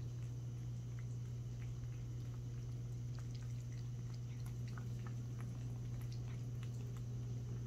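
Cat drinking from a ceramic water bowl: soft, irregular little lapping and dripping clicks, over a steady low hum.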